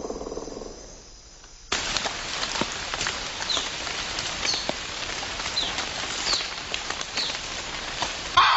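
Rain falling on dense rainforest foliage, a steady hiss full of small drips, setting in suddenly after a quieter low rumble in the first second and a half. Short, high, falling bird calls sound about once a second through the rain. Just before the end a loud, buzzing insect call cuts in.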